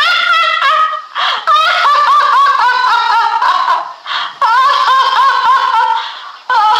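A woman laughing in high-pitched, rapid "ha-ha" syllables, in several bouts with short breaths between them, about a second in, about four seconds in, and near the end.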